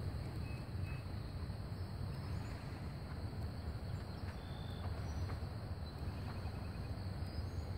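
Outdoor riverbank ambience: a steady low rumble with a few faint bird chirps and a short trill about six seconds in.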